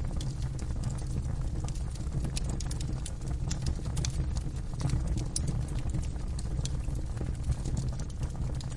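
Wood fire burning in a fireplace, crackling: irregular sharp pops and snaps, several a second, over a steady low rumble of the flames.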